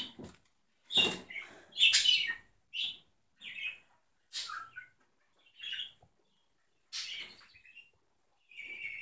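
Small fluffy dog whining and yelping in a string of short high-pitched calls, about one a second, the loudest near the start.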